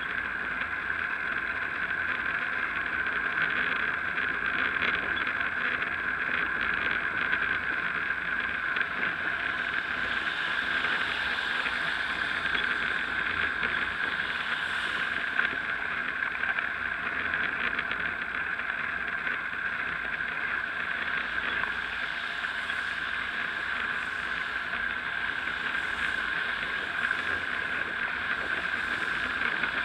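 Steady rushing noise of a bicycle ride on a wet road, picked up by a bike-mounted action camera: tyre hiss on wet tarmac mixed with wind over the microphone.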